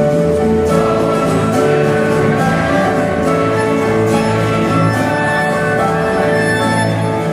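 Live church band playing a hymn on acoustic guitars and keyboard, with sustained chords.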